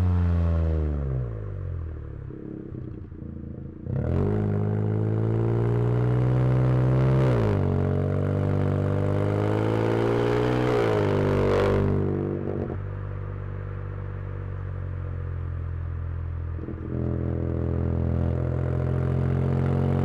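Turbocharged VW Polo TSI engine with an aftermarket exhaust and stage 2 remap, heard from the cabin under hard acceleration. The revs fall off at first, climb steeply from about four seconds in, drop sharply at an upshift a little after seven seconds, and climb again until the driver lifts off about twelve seconds in. The car then cruises at a steady note before the throttle opens again near the end.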